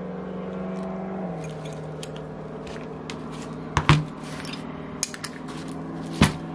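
Small metal clicks and knocks of a Saito FA-82 model engine and tools being handled on a workbench mat. The sharpest knock comes about four seconds in as the engine is set down, and another comes near the end, over a steady low hum.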